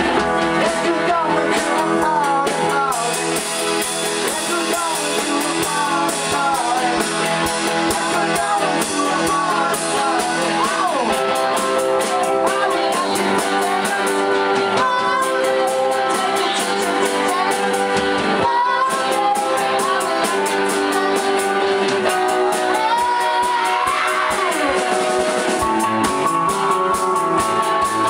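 A live song: several voices singing together over an electronic keyboard, with a full band in the room.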